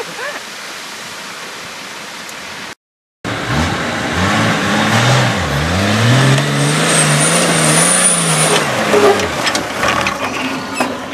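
Off-road vehicle's diesel engine revving under load after a steady stretch of noise. Its pitch climbs, holds with a thin high whine above it, then falls away.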